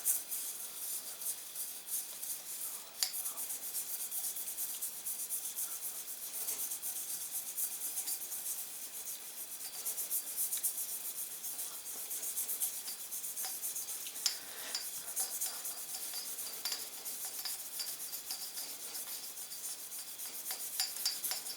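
Toothbrush scrubbing the inside of a metal suppressor tube as the tube is spun: a continuous run of rapid brushing strokes, with an occasional knock.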